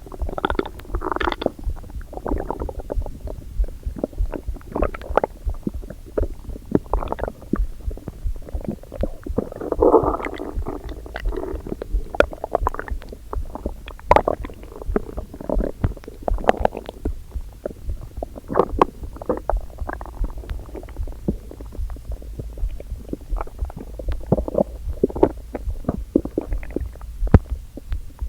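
A hungry human stomach rumbling and gurgling, in irregular spells with many short pops, and a longer, fuller gurgle about ten seconds in. It is an empty stomach before breakfast.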